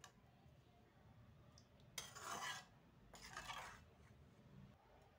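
Metal spoon scraping against the kadhai as the thick cucumber curry is stirred: two soft scrapes, about two seconds in and again a second later.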